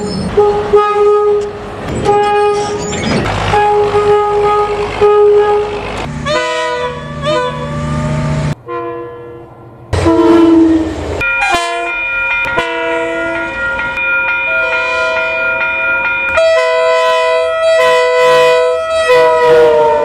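Train horns one after another. First a small vintage diesel shunter's single-note horn gives repeated short toots. After a short gap, a KiwiRail mainline diesel locomotive sounds a multi-note chime horn in long held chords, whose pitch sags just before the end.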